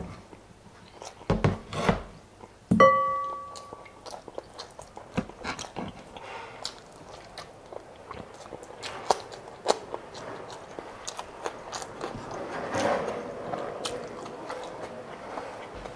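Close-miked mukbang eating sounds: chewing with many small wet mouth clicks and smacks. A few dull knocks come in the first two seconds, and a single short ringing tone, like a chime or a clink, sounds about three seconds in.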